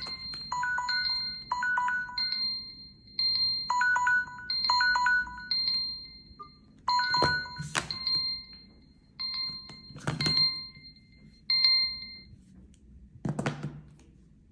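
Several smartphone timer alarms ringing at once, their repeating electronic beep patterns overlapping and then stopping about three-quarters of the way through. Four sharp knocks fall in the second half, the last one after the beeping has ended.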